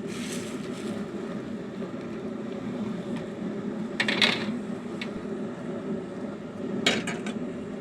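Steady low hum of stovetop cooking, a pot of water heating toward the boil, with two short clinks, about four and seven seconds in.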